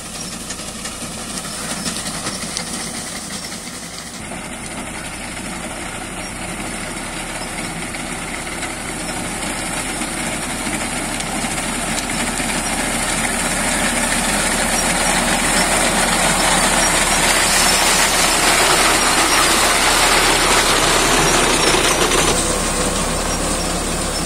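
Tractor engine running with a front-mounted reaper cutting standing wheat. It grows steadily louder as the tractor comes closer and is loudest near the end.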